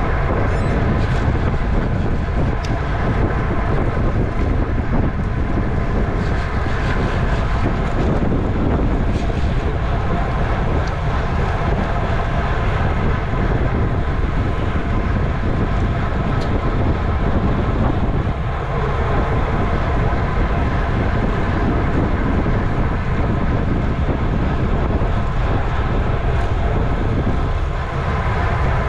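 Wind buffeting the microphone of a camera riding along on a bicycle at criterium race speed: a loud, steady low rush of noise. Faint, steady whining tones sit above it.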